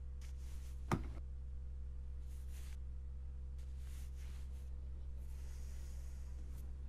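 A steady low hum fills the room, with soft breaths over it and one sharp knock about a second in.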